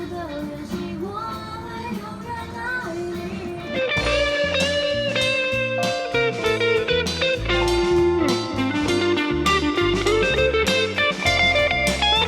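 Pop-rock music with electric guitar. About four seconds in, the full band enters with bass and drums and the music gets louder.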